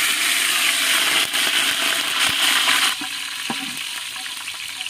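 Curry leaves sizzling in hot oil, tempering with mustard seeds and cumin: a dense, loud hiss that drops sharply about three seconds in to a quieter sizzle with a few faint crackles.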